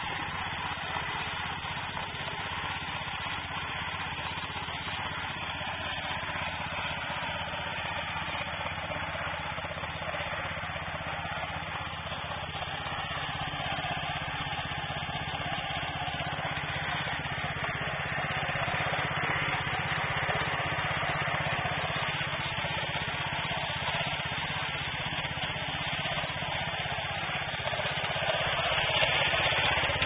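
Small 6 HP gasoline engine of a mini bale wrapper running steadily as the machine turns the bale and wraps it in plastic film, getting a little louder near the end.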